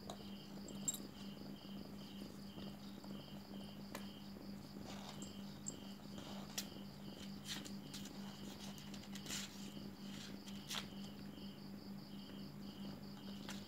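Insects chirping in a steady, fast rhythm of about four high pulses a second, coming in runs with short breaks. Under it runs a low steady hum, with a few soft clicks and rustles scattered through.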